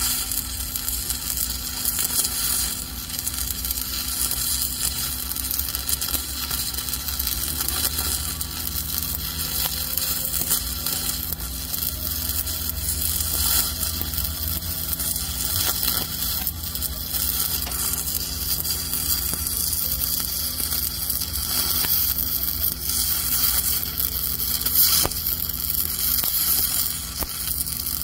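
Stick welding arc running steadily without a break as a 5/32-inch Lincoln Excalibur 7018 electrode burns in an overhead weld on galvanized steel at about 157 amps.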